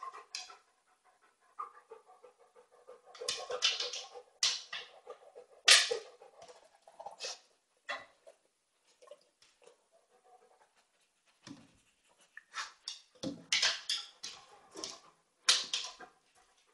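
A dog sniffing and snuffling in short, irregular bursts of breath through its nose, with a few quick runs of sniffs.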